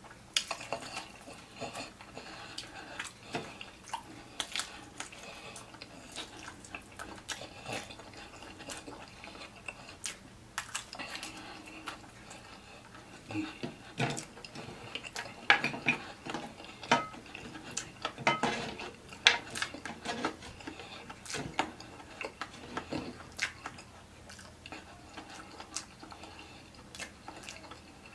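Fried chicken being torn apart and eaten by hand, with many irregular clicks and clatters of bones and pieces set down on a glass plate and tray, busiest in the middle.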